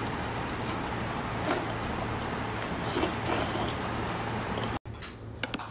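Close-miked chewing of octopus: wet, squishy mouth sounds over a steady hiss and low hum, with a few louder smacks about one and a half and three seconds in. Near the end the sound drops out for an instant and gives way to a quieter stretch with small clicks.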